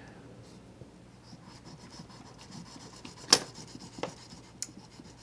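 Small blade of a keychain-sized pliers multitool sawing at a piece of rope with faint rubbing strokes. A sharp snap comes a little past halfway and is the loudest sound, followed by two softer clicks.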